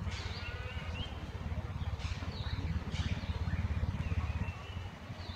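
Several short, thin, high-pitched whimpering cries from a baby macaque, wavering in pitch, over a steady low rumble.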